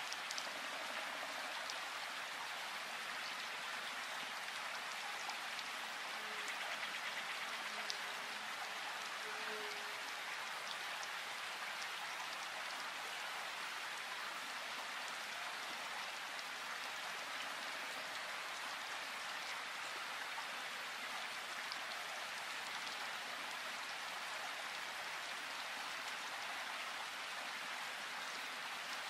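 Steady rain falling in a forest: a dense, even hiss of many drops pattering on leaves and ground, with no let-up.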